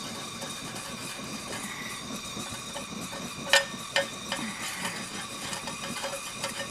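Bernzomatic TS8000 propane torch flame hissing steadily on an aluminum pipe, while a thin steel rod stirs and scrapes the molten brazing puddle. A few sharp metallic ticks come a little past halfway as the rod taps the pipe.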